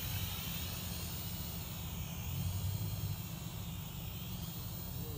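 Small quadcopter drone flying, its propellers giving a steady buzzing whine that wavers in pitch as it manoeuvres, over a low rumble.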